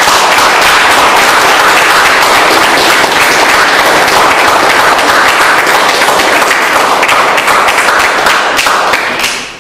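Audience applauding, a loud, dense, steady clapping that dies away near the end.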